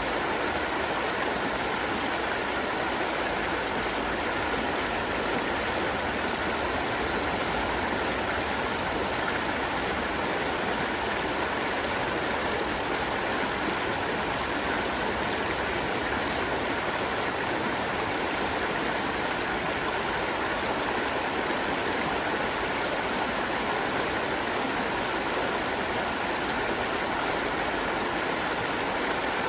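Gentle river stream flowing steadily: a constant, even rush of running water.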